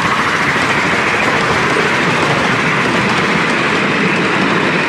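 Miniature railway passenger carriages rolling past close by: a steady clatter and rumble of small wheels running on the rails.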